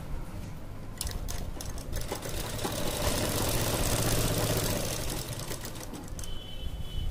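Sewing machine running as it topstitches through the gathered elastic waistband of a palazzo. It starts with a few clicks about a second in, runs steadily with a low hum and slows to a stop near the end.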